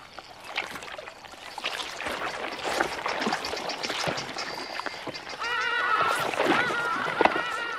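Wet sloshing and squelching of water and mud as a Nile crocodile thrashes her head from side to side in a shallow mud pool. From a little past halfway, a run of short, repeated yelping calls comes in over it and becomes the loudest sound.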